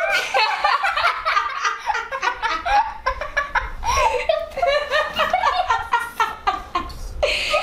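A girl laughing hard: a long run of high-pitched laughs in quick bursts.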